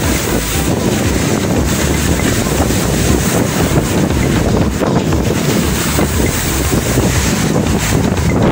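Strong wind blowing across the microphone over a rough sea, with big monsoon-driven waves surging and breaking against a concrete seawall.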